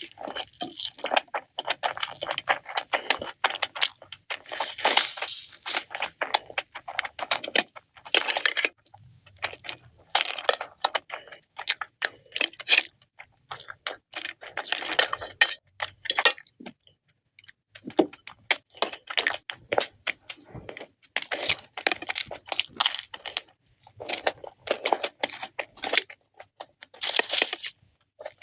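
Close-miked eating sounds: wet chewing and crunching of fried chicken and noodles, in bursts of quick crackles and clicks with short pauses between.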